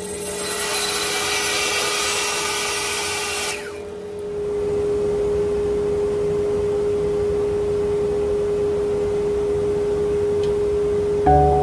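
Wood lathe running with a steady hum while a tool works the spinning live oak bowl. There is a bright scraping hiss for the first few seconds, a short lull, then a steadier, duller rubbing sound.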